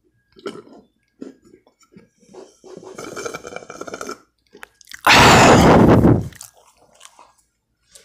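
Soda being sipped through a straw, with wet mouth and swallowing noises, followed about five seconds in by a loud breathy blast lasting just over a second.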